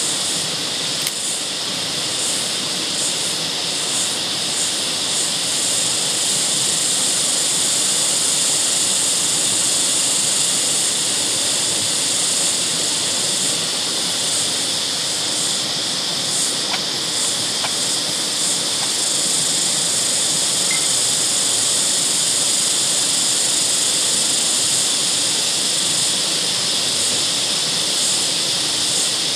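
Steady high-pitched hiss of outdoor background noise, with two faint clicks about seventeen seconds in.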